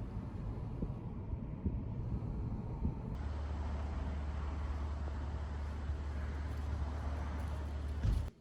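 Low, steady rumble of a moving vehicle, with the texture shifting about three seconds in. It cuts off abruptly just before the end.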